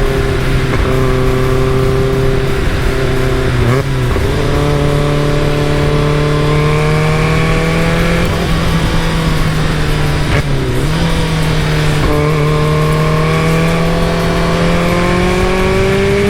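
Caterham Super Seven engine running steadily while driving. Its note climbs slowly and dips briefly twice, about four and ten seconds in.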